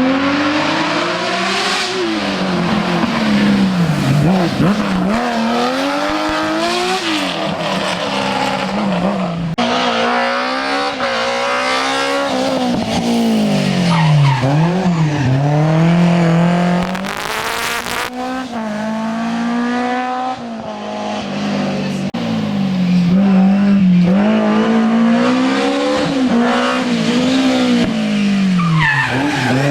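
Historic rally car engines at full throttle on a special stage, their pitch climbing and dropping again and again through gear changes and lifts off the throttle.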